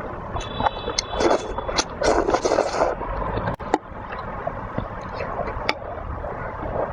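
Close-up food sounds: the soup sloshing and gurgling under many short, sharp clicks, with one louder click about three and a half seconds in.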